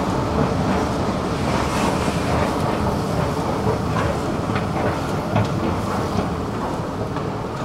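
Subway-station escalator running: a steady mechanical rumble with a few sharp clicks, growing a little quieter near the end.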